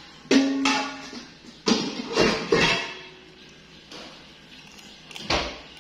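Metal pots and pans knocking and clattering on a kitchen counter and stove: several sharp knocks with brief ringing, the first about a third of a second in, a cluster around two seconds in and one more near the end.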